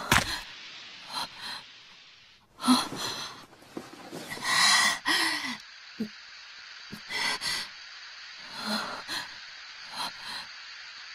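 A person gasping and breathing hard in a series of short, separate breaths, some with a brief voiced groan, over a steady background hiss.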